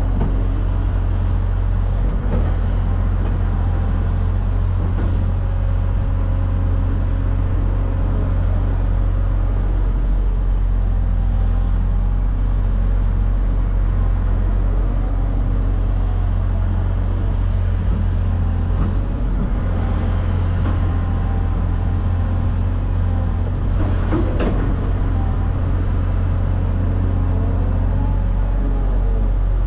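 Heavy engine running steadily with a deep low rumble. A few brief clunks or rattles come through, the clearest about 24 seconds in.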